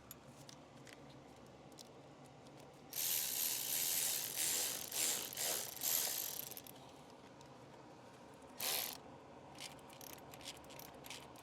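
Socket ratchet clicking rapidly for several seconds as a hose clamp is tightened, then a short burst of clicking and a few scattered light clicks and taps.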